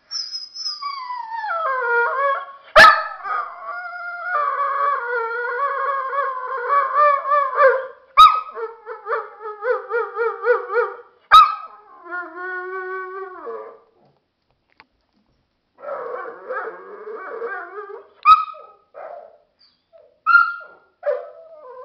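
Dogo Argentino howling in long, wavering, drawn-out 'talking' calls, then breaking off for about two seconds and going on in shorter yowls. Four sharp clicks cut through the calls and are the loudest sounds.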